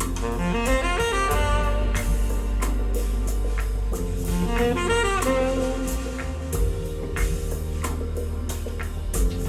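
Instrumental music played back through Edifier S3000 Pro MKII active speakers and picked up by a microphone in the room. Quick rising melodic runs from a lead instrument come twice, over steady bass and drums.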